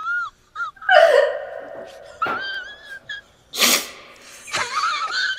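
A person's voice making short non-word sounds, with a loud hissing burst about three and a half seconds in.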